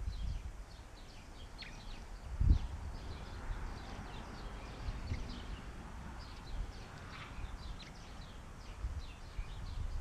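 Many small songbirds chirping and twittering in short high calls throughout, over low rumbling bumps on the microphone, the strongest about two and a half seconds in.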